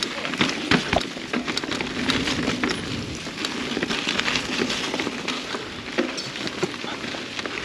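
Mountain bike rolling along a dirt trail: a steady crackle of tyres over grit and small stones, with many small clicks and rattles.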